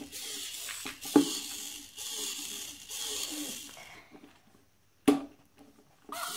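Teksta Robo Puppy robot dog toy making faint electronic sounds with a high hiss as it moves, with a sharp click about a second in. It goes nearly quiet about four seconds in, and there is a single knock about five seconds in.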